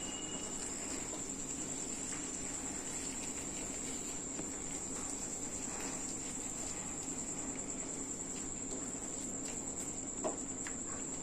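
Crickets chirring in a steady high trill, with a few faint knocks of a spoon in the pan and one sharper knock near the end.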